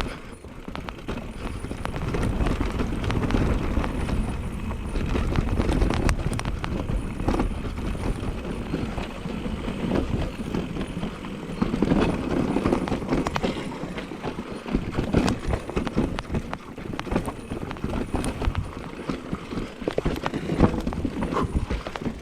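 Specialized Turbo Levo e-mountain bike riding down a dirt trail: a steady rumble of the tyres over rough ground, broken by many sharp clacks and knocks as the bike rattles over bumps.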